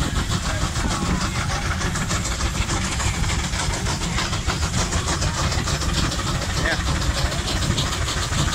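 Steam traction engines running, one driving a long flat belt off its flywheel, with a fast, even beat of exhaust over a steady low rumble.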